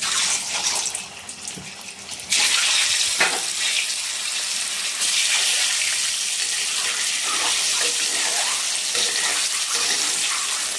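Whole peeled boiled eggs sizzling in hot oil and turmeric in a kadai. The sizzle turns suddenly much louder about two seconds in as the eggs go into the oil, then holds as a steady hiss while they fry.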